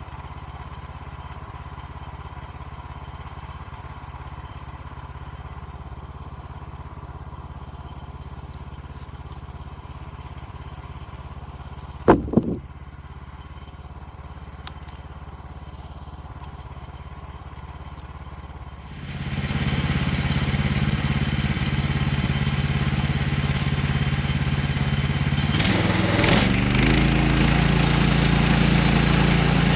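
A portable bandsaw sawmill's engine idling steadily, with a sharp clunk about twelve seconds in. After about nineteen seconds the engine is opened up and runs much louder, its pitch shifting briefly near the end before it settles again.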